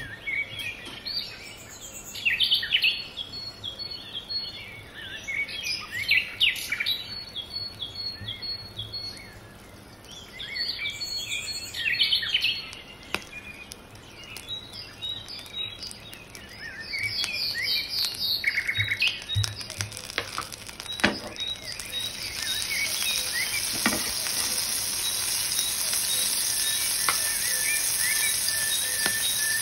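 Small birds chirping and calling in quick bursts. From about two-thirds of the way in, melted butter in a frying pan starts to sizzle and foam as it heats, a steady hiss that grows toward the end while the chirps go on.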